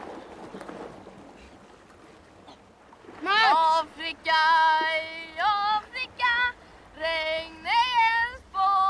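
A high voice singing a slow, wordless tune in long held notes that swoop up into pitch, starting about three seconds in after a faint hiss.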